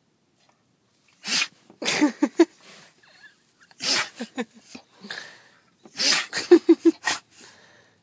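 Dog sneezing in three fits, each a loud sudden burst followed by a few quicker, shorter ones.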